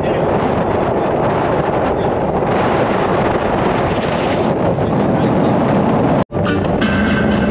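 Wind buffeting the microphone over a motorboat running at speed, a loud steady rush. It cuts off abruptly about six seconds in, and music with steady tones takes over.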